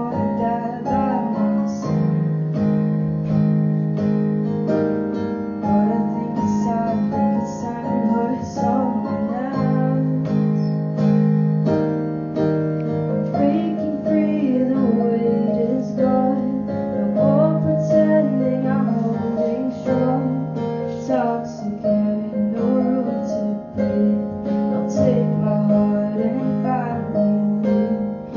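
Raw recording of a song: strummed guitar and piano or keyboard chords, with a woman singing in places.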